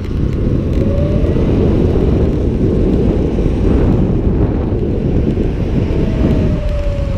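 Surron X electric dirt bike being ridden, heard mostly as heavy wind rumble on the camera microphone, with the electric motor's faint whine rising briefly about a second in and falling in pitch near the end.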